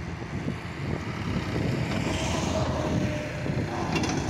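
John Deere tractor engine working hard under load as it reverses a threshing machine through wet ground, with wind buffeting the microphone. It gets louder about a second in, and a few sharp knocks come near the end.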